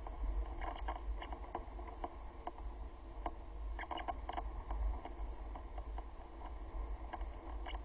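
Sailing ship under way: wind rumbling on the microphone over a steady rush of noise, with many small irregular clicks and creaks scattered throughout.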